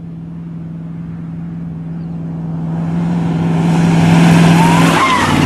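Pickup truck racing flat out toward and past the listener, engine note steady and growing steadily louder, with rising tyre and dust rush. About five seconds in the engine pitch drops as the truck goes by.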